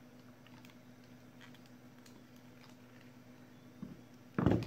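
Faint handling sounds of a laptop battery pack of 18650 lithium-ion cells and a screwdriver on a silicone repair mat: a few soft clicks and taps, then a louder bump near the end as something is set down.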